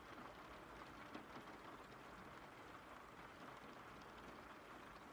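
Faint, steady recorded rain with scattered drop ticks, a rain-sounds background track.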